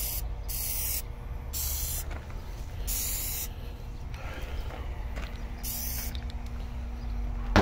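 Aerosol can of Plasti Dip rubber coating sprayed in five short hisses of under a second each, with a longer pause before the last one.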